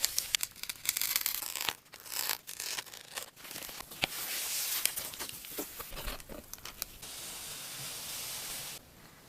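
Packaging of a Nothing Phone (2a) being torn open and handled: tearing and rustling with scattered small clicks, then a steadier tearing stretch that cuts off sharply near the end.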